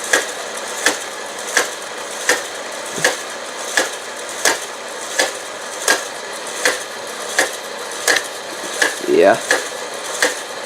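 Motorized K'nex coaster mechanism running steadily, its plastic parts clicking sharply at an even pace, about three clicks every two seconds, over a constant whirr.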